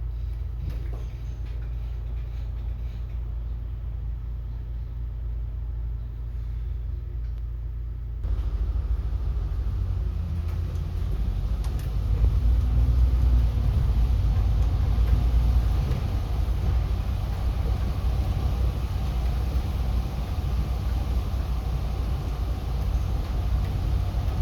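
City bus running, heard from inside the cabin: a steady low engine hum, then about eight seconds in the rumble gets suddenly louder as the bus gets under way, with the engine note rising and falling and road noise.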